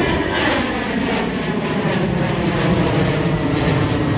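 Jet engines of a narrowbody twin-engine airliner climbing out overhead, a steady loud jet noise with no rise or fall.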